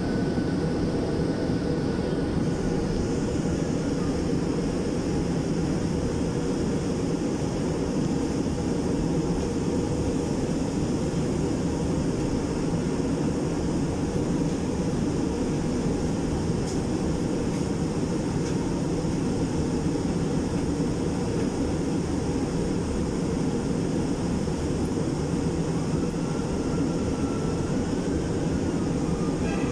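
Cabin noise of an MRT-3 light-rail train running on elevated track and into a station: a steady low rumble, with a faint whine near the start and another that rises and falls near the end.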